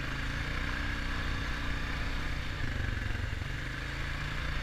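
A small ATV engine running steadily under way, with an even low drone and a constant hiss of wind and tyre noise over it.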